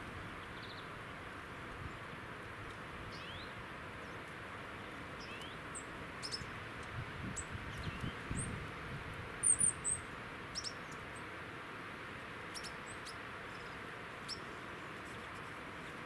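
A flock of long-tailed tits calling with short, thin, very high notes, scattered and busiest in the middle, the loudest cluster of calls about nine and a half seconds in, over a steady background hiss.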